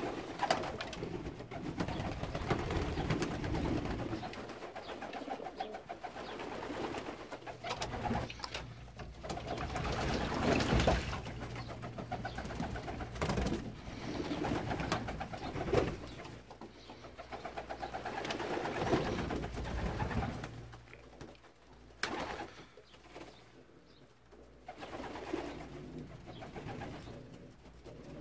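Young racing pigeons cooing over and over, several birds at once, in swells that rise and fall. A few brief sharp knocks or flaps break in, the sharpest about three quarters of the way through.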